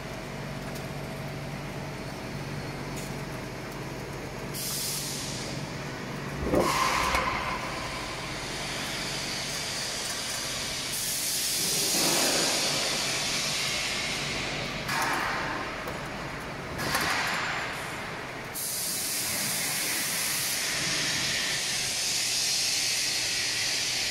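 Continuous fryer running with a steady low hum, broken by repeated bursts of hissing from hot oil frying sausage slices. About six and a half seconds in there is one sudden, louder noise that falls in pitch.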